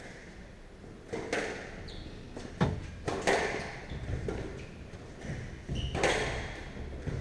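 Squash rally: the ball cracking off rackets and the walls, each hit ringing around the court, about five hits in all. Short squeaks of court shoes on the wooden floor come between the shots.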